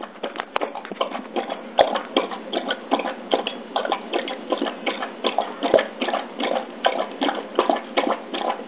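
Basset hound lapping water from its bowl: a quick, steady run of wet laps, several a second.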